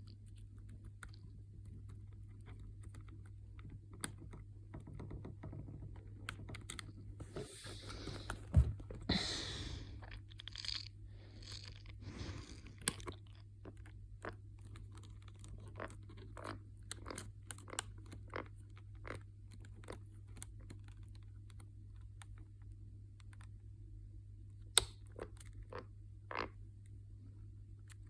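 A metal paperclip scraping and clicking inside an iPad's charging port as the port is picked clean: scattered small clicks, with a run of louder scratchy scrapes around eight to thirteen seconds in, over a steady low hum.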